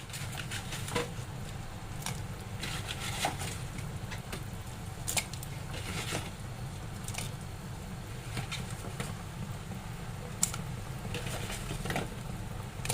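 Kitchen cookware being handled: about half a dozen short clicks and knocks, scattered irregularly over a steady low hum.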